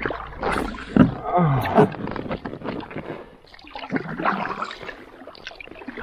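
Kayak paddle strokes: the blades of a double-bladed paddle splashing into calm lake water at an uneven pace.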